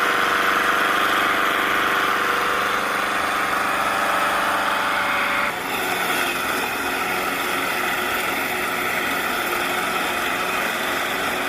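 Briggs & Stratton 6.75 Quantum single-cylinder lawn mower engine running steadily through a modified muffler, its internal baffle holes enlarged, giving a slightly tinny exhaust note. The note shifts a little about five and a half seconds in.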